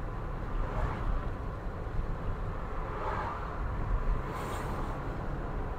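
Car driving along a city street, heard from inside the cabin: a steady low rumble of engine and tyres on the road, with a brief hiss about four and a half seconds in.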